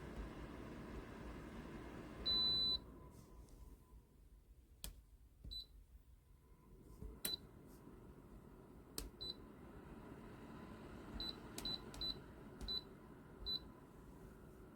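Electronic control panel of a Dreo ceramic space heater beeping as its buttons are pressed: one longer high beep, then a string of short beeps at the same pitch, some with sharp button clicks. The heater's steady running noise drops away after the long beep and comes back a few seconds later.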